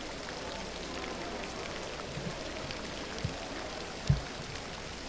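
Diving-pool hall ambience: a steady hiss like water falling on water, with a short dull low thump about four seconds in.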